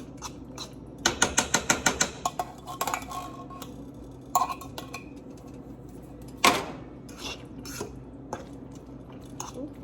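Cooking utensil clinking and knocking against a pot: a quick run of about ten taps about a second in, then scattered knocks and one louder clank past the middle.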